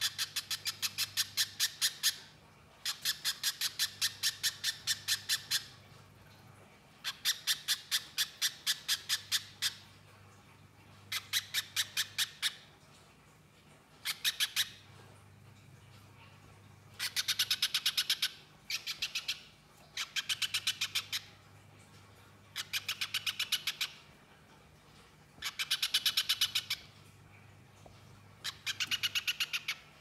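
Caged little spiderhunter (pijantung pisang) calling in its rapid chattering 'nyerecet' style: about ten bursts of fast, sharp repeated notes, each lasting one to three seconds, with short pauses between.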